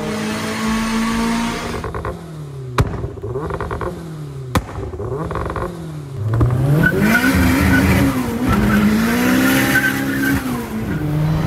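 Turbocharged Suzuki Swift Sport engine revving again and again, its pitch climbing and falling, with two sharp cracks a little under two seconds apart. From about six seconds in it revs harder and louder.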